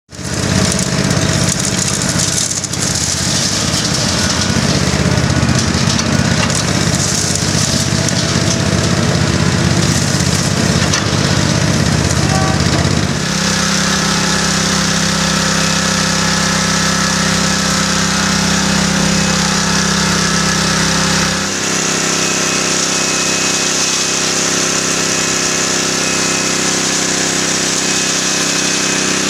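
EZ1-1 concrete mixer running with a steady mechanical drone. The sound changes abruptly about 13 seconds in and again about 21 seconds in.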